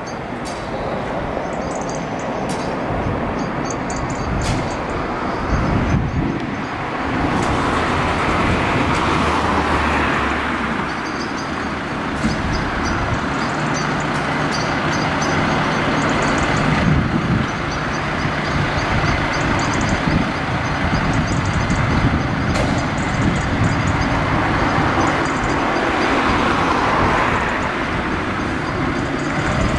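Volvo FL fire engine's diesel engine running in the station bay while the bay's roller door rattles up during the first half, with a light, rapid ticking on top.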